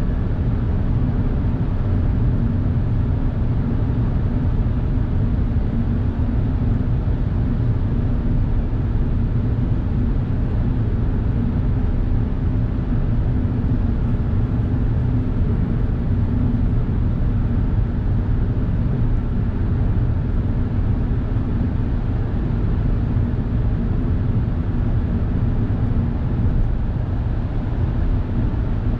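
Steady road and engine noise inside the cabin of a Suzuki Hustler kei car driving through a long road tunnel: an even, low rumble with no change in pitch.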